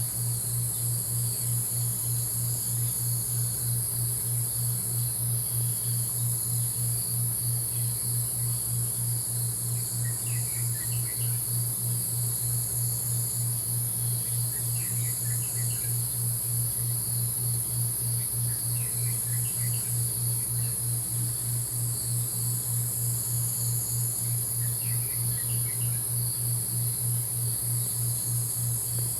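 Dawn nature ambience: a steady, high insect chorus over a low, rapidly pulsing hum. Small clusters of short bird chirps come four times.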